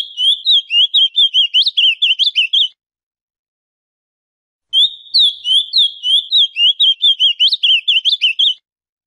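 Male ultramarine grosbeak (azulão, Cyanoloxia brissonii) singing: a rapid warbled phrase of quick, sliding whistled notes ends about three seconds in, and after a pause of about two seconds a second phrase of about four seconds follows. There is no background sound between phrases.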